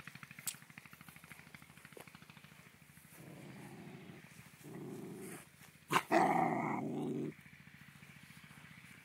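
Four-month-old German Shepherd puppies play-fighting, growling in three short bouts, the last and loudest about six seconds in, just after a sharp knock.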